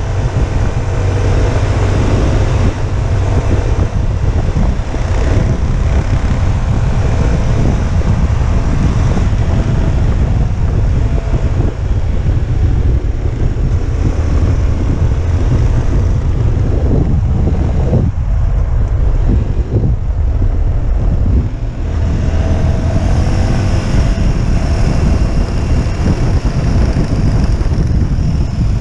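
Motorcycle engine running under way, heavily buffeted by wind noise on the camera microphone, with the engine note shifting in pitch near the end.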